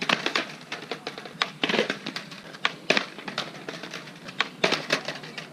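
A skateboard clattering on concrete: a string of sharp, irregular clacks as the tail pops and the board hits the ground and a ledge.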